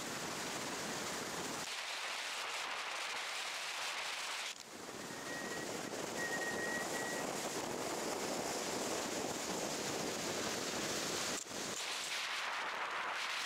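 Steady rushing wind and road noise from a car driving along a road, with its tone changing abruptly a few times.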